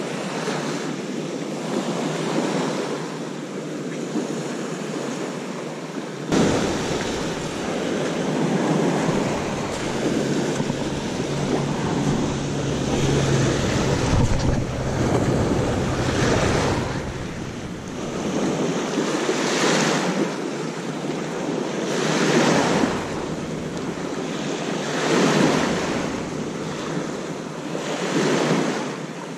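Small sea waves surging and washing onto a pebbly shore, the wash swelling and falling back about every three seconds in the second half. Wind buffets the microphone from about six seconds in.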